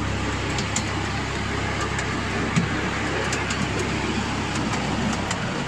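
Miniature railway train running along the track, heard from an open passenger car: a steady rumble and rattle of the running gear with scattered sharp clicks.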